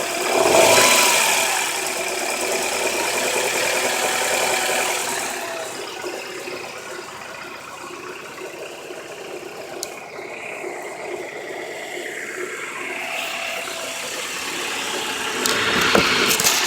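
Honda H22 four-cylinder engine running, revved briefly about a second in and then idling, with the knock of a bad rod bearing.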